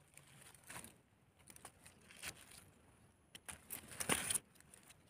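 Dry eucalyptus leaf litter crackling and rustling as a hand digs into it and pulls mushrooms out, in a few short bursts, the loudest cluster about four seconds in.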